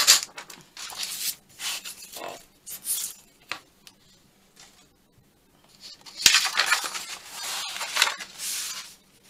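Sheets of patterned paper rustling and sliding over a cutting mat as they are handled, with light clinks from a steel ruler and a sharp tap about six seconds in. The rustling is busiest near the end.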